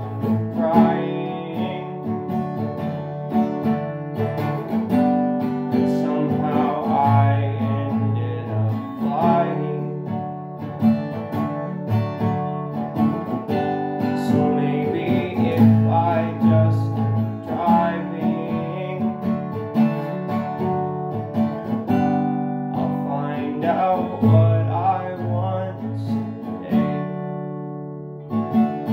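Acoustic guitar strummed in a slow chord progression, each chord ringing out before the next strum.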